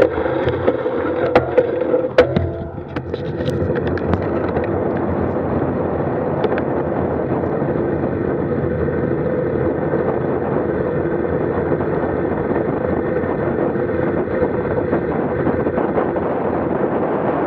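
Steady rushing wind and road noise on a road bike's handlebar-mounted camera during a fast descent. A few sharp clicks come in the first few seconds.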